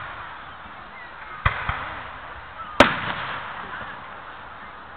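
Aerial fireworks going off: three sharp bangs, two close together about a second and a half in and the loudest near the three-second mark.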